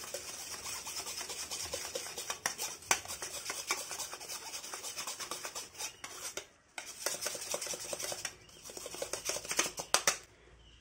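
A teaspoon rubbing bicarbonate of soda through a small mesh sieve: a fast, continuous scratchy rasping, with a brief pause about two-thirds of the way through and again near the end.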